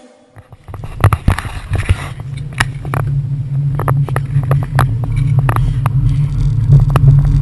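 Low steady rumble of a city tram running alongside on street rails, growing louder, with sharp irregular knocks about twice a second from the camera-carrier running. It starts after a brief moment of quiet.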